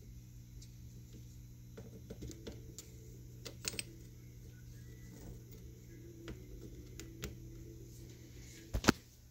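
Vacuum tubes being pulled out of and pushed into the sockets of a 1959 Admiral stereo tube radio chassis: scattered clicks and scrapes of glass and pins, with a sharp double click near the end. A steady low hum runs underneath.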